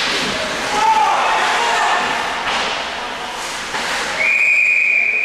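Ice hockey game in a rink: skates scraping the ice with a few sharp knocks from sticks and puck, and players' shouts. About four seconds in, a long, steady referee's whistle blast starts.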